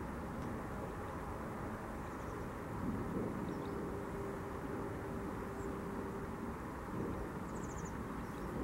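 Steady low background rumble of outdoor ambience, with a faint steady hum that comes in about three seconds in and fades out about three seconds later.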